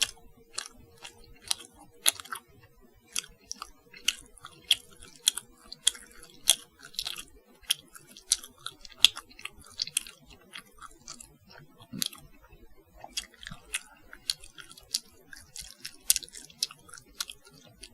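A person eating: close-up chewing with sharp, crunching bites, about two a second, steady throughout.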